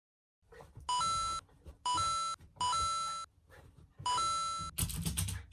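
An electronic two-note chime, a short lower note stepping up to a higher one, sounds four times about a second apart. Near the end a loud burst of rustling, knocking noise follows.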